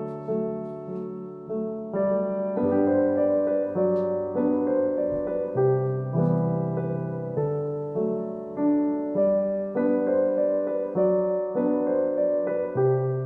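Background piano music: a gentle melody of notes and chords, each struck and fading, changing about every half second to a second.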